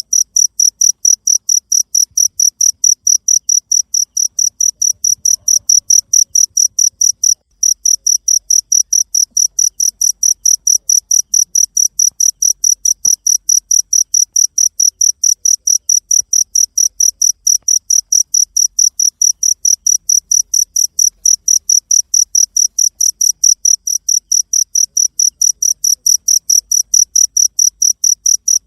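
Cricket chirping steadily in an even, high-pitched rhythm of about four chirps a second, with one brief break a little over seven seconds in.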